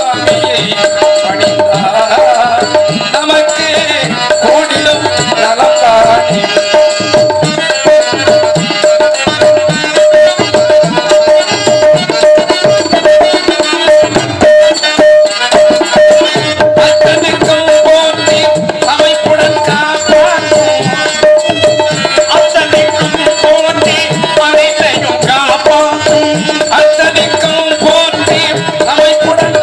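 Live Tamil folk stage music with no singing: hand drums keep a steady rhythm under a continuous held drone note and a wavering melody line.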